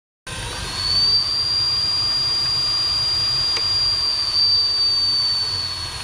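A 5000 W electric hub motor spinning the rear wheel of an electric enduro bike off the ground at full throttle, running steadily with a high whistle, which fades away near the end as the wheel slows.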